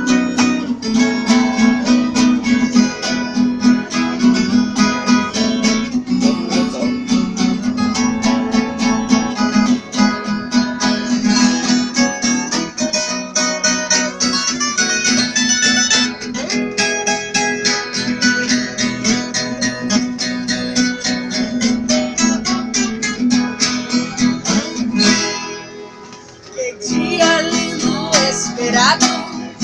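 Viola caipira and acoustic guitar playing an improvised instrumental together, quick plucked notes over a strummed accompaniment. The playing drops away for a moment near the end, then picks up again.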